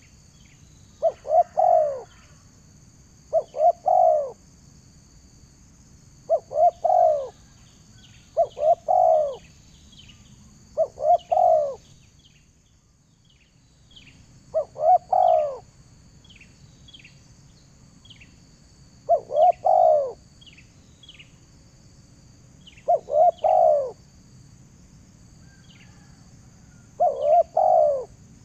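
A bird repeatedly giving short, loud arched call notes in clusters of two or three every few seconds, while smaller birds chirp faintly and a steady high insect-like whine runs underneath.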